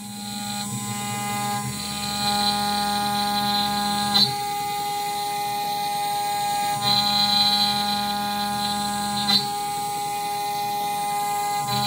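DIY CNC router spindle running steadily and cutting a pocket into a board. A stepper-driven axis adds a hum in several tones that switches on and off as the carriage moves. Short knocks come at about four seconds and again at about nine seconds.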